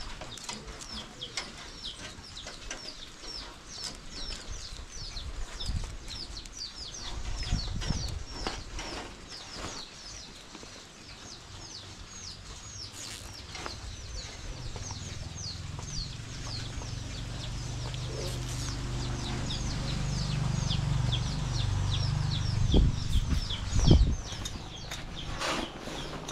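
Rapid high-pitched bird chirping, several short descending chirps a second. A low engine hum builds from about halfway and fades again near the end, and a couple of loud knocks come shortly before the end.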